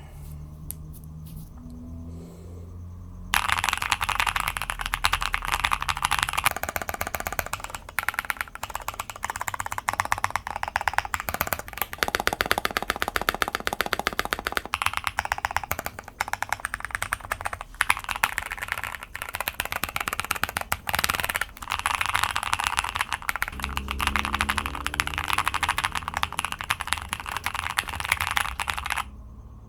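Fast, continuous typing on a custom 65% mechanical keyboard: a Mode Envoy case with a carbon-fibre plate, factory-lubed BSUN X linear switches and GMK keycaps. The keystrokes start about three seconds in, after a few seconds of soft background music that carries on under them.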